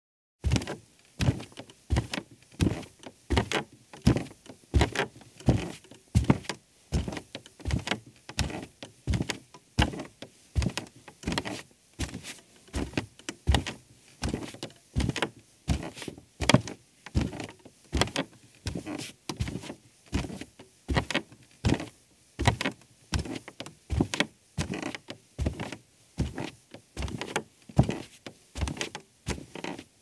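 A man walking barefoot across a creaky rug: steady footsteps, about two a second, each a soft thud with a creak.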